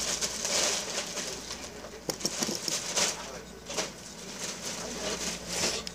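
A girl's breathy laughter, with a few small clicks about two to three seconds in.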